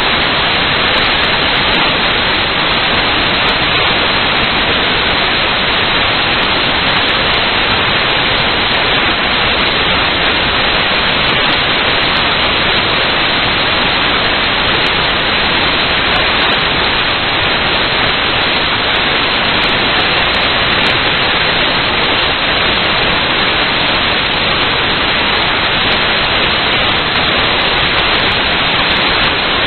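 Loud, steady static hiss with no tones, rhythm or change in level; no motor or actuator sound stands out from it.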